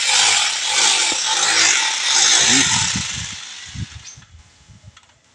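Compressed-air paint spray gun hissing steadily while spraying paint. The hiss fades away over about the last two seconds as the spraying stops.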